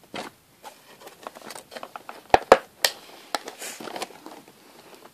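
A doll's cardboard box with a clear plastic window being handled and opened: crinkling, scraping and tapping, with three sharp clicks a little past halfway.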